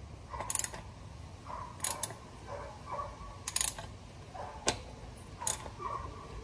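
Ratchet wrench clicking in short bursts, about six spaced strokes, as it turns the oil filter loose.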